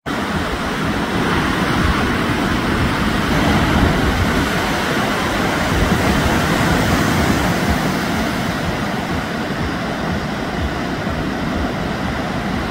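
Steady noise of ocean surf breaking, a little louder a few seconds in.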